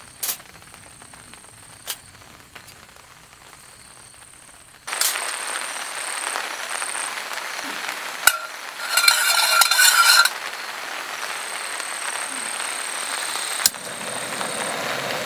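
Food frying in a hot pan: a steady sizzle starts suddenly about five seconds in, flares louder for about a second and a half near the middle, with a few sharp clicks of utensils. Before the sizzle starts there is only a faint hiss with occasional clicks.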